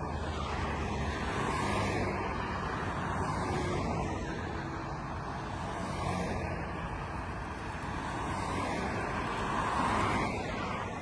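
A convoy of pickup trucks and cars driving past one after another, the engine and tyre noise swelling as each vehicle goes by. It is loudest near the end as a car passes close.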